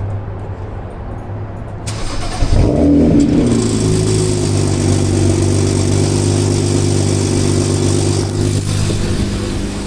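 BMW 335is twin-turbo straight-six started: it cranks and catches about two and a half seconds in, flares up, then settles into a steady idle.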